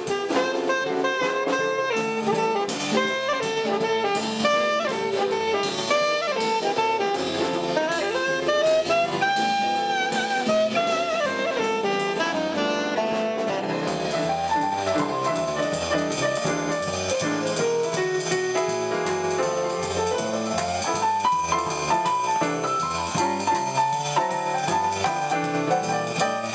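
A small jazz band playing a swing tune, with a saxophone leading the melody over drum kit and a stepping bass line.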